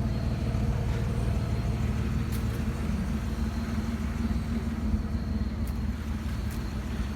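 Truck engine running steadily, a continuous drone.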